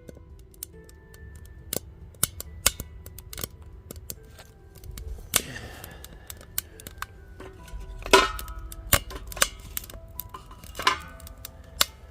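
Campfire crackling with sharp, irregular pops, and louder crackles about five, eight and eleven seconds in. Faint music runs underneath.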